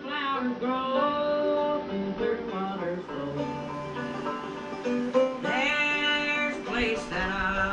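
Music led by acoustic guitar.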